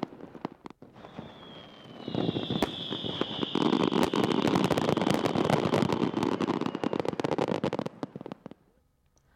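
Underwater fireworks bursting at the sea surface. Scattered crackles grow into a dense, loud run of rapid crackling about two seconds in, with a whistle falling slightly in pitch alongside it. The crackling dies away shortly before the end.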